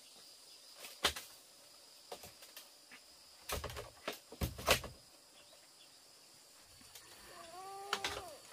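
A few sharp knocks and clatters, then near the end a drawn-out whine from a small pet animal that bends down in pitch as it ends.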